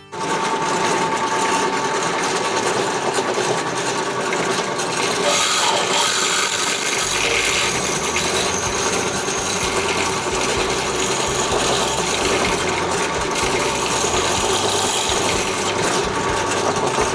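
Yardman chipper shredder, powered by a 212 cc gas engine, running loud and steady while shredding wood, with a constant rattling clatter of chips through the machine. The noise starts suddenly and holds even throughout.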